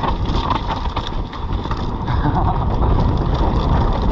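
Mountain bike descending a rough, wet trail: a steady low rush of wind and tyre noise on the microphone, broken by many short rattles and knocks from the bike.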